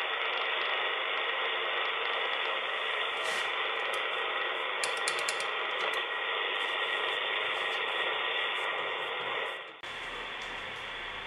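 Loudspeaker of an AEG Telefunken E800/2 shortwave receiver hissing with band noise and a steady whistle. About four to five seconds in there is a quick run of clicks from its front-panel controls as it is retuned. Near the end the hiss drops away to a quieter noise with a low hum.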